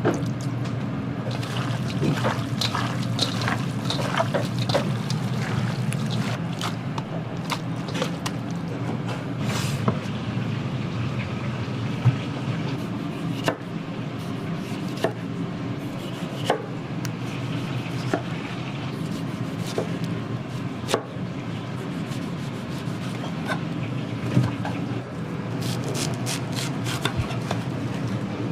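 Food-preparation sounds in a commercial kitchen: liquid being handled, with scattered clicks and knocks of utensils over a steady low hum.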